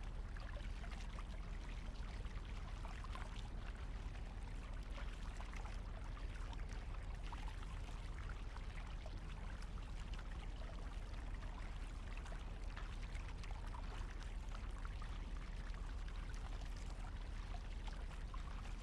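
Double-bladed kayak paddle dipping and pulling through calm water, with water splashing and trickling off the blades as the kayak is paddled steadily along.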